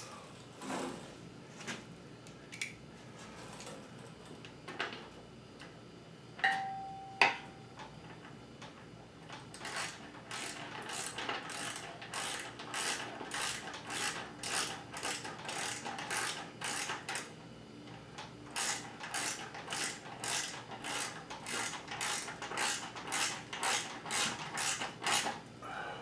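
Hand ratchet clicking in quick, even strokes as a bolt is turned, in two long runs with a short pause between. Before the ratcheting come a few light tool taps and a sharp metallic clink that rings briefly, about seven seconds in.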